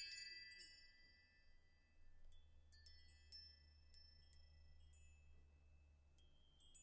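Faint sparkling chime tones of a logo-intro jingle: a high ringing chord dies away in the first second, then single high tinkles ring out every half second or so.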